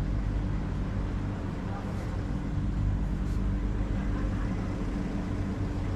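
Steady low mechanical hum with several held low tones and no clear events.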